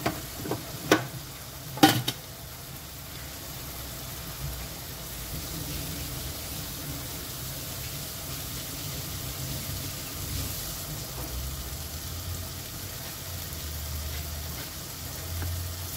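Red sambal chilli sauce sizzling steadily in a pot on the stove. A few sharp knocks come in the first two seconds, the loudest about two seconds in.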